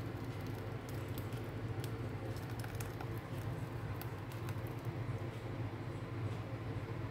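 Thick banana batter poured from a bowl onto flour, with faint soft patter and scattered ticks in the first half, over a steady low hum that is the loudest sound throughout.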